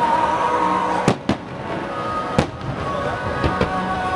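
Aerial fireworks shells bursting: five sharp bangs, a close pair just after a second in, one in the middle and two fainter ones near the end. Music plays underneath throughout.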